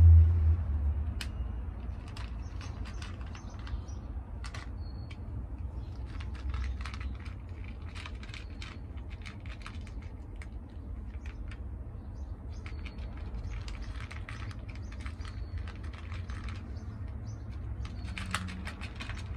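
Two cats eating from an aluminium foil tray: irregular runs of small crisp chewing clicks, over a steady low rumble.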